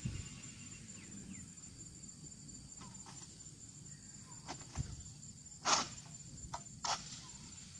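Oil palm harvesting pole working in the crown of the palm: a few sharp knocks and scrapes, the loudest and longest about three quarters of the way through. A faint steady high chirring of insects runs underneath.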